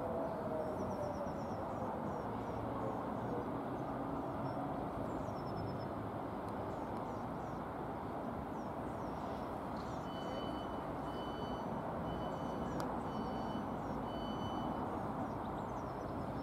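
Locomotive approaching slowly in the distance: a steady low rumble with no build in loudness, with small bird chirps over it and a run of about five high piping notes about two-thirds through.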